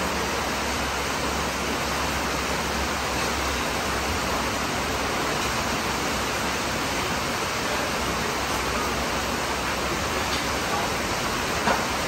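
Steady rain falling, an even hiss that does not change, with a brief knock near the end.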